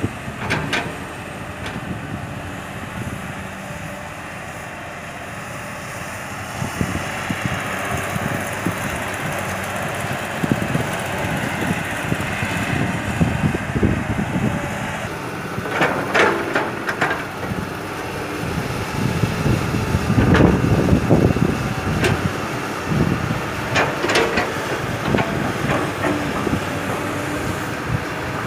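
Hydraulic excavator's diesel engine running steadily as it loads hard clay and rock into a steel dump truck body. Several clattering bursts of stones and soil striking the steel bed come in the second half, the heaviest near the middle of that stretch.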